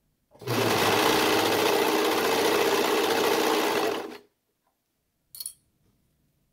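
Serger (overlock machine) running at a steady speed as it sews a neckband seam through three layers of knit fabric, starting a moment in and stopping after about four seconds. A brief faint sound follows about a second later.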